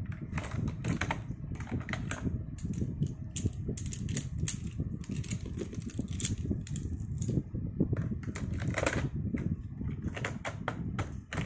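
Plastic pens and markers clicking and clattering against each other and the desk as a handful is picked up and sorted. The clicks come irregularly, over a steady low rumble.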